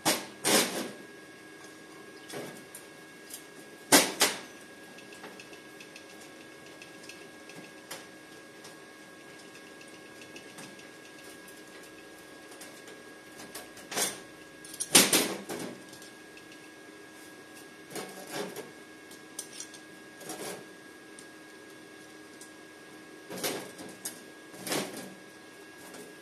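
Short steel pieces being handled and set down on a steel welding table: several sharp metallic clanks with brief ringing, the loudest about four seconds in and again around fifteen seconds in, with quiet gaps between.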